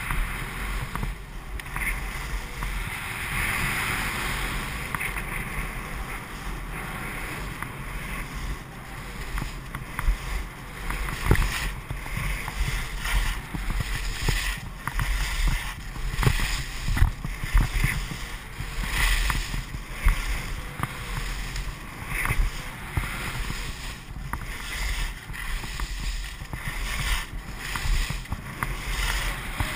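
Skis sliding and scraping over packed, uneven snow, with wind rumbling on the microphone. Irregular knocks and scrapes of the ski edges come more often after the first third, as the skis run over bumps.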